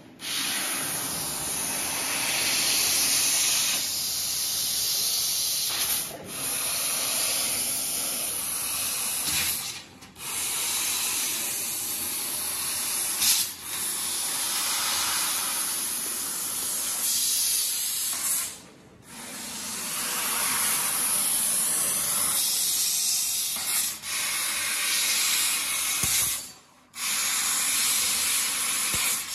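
1.5 kW laser cutting machine cutting sheet metal: a steady hiss of assist gas from the cutting head, which stops for a moment about five times as the head moves between cuts.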